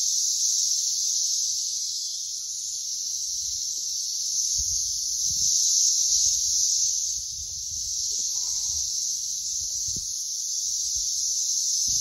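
Brood X periodical cicadas in full chorus: a loud, steady, high-pitched droning buzz that swells a little about halfway through and eases again.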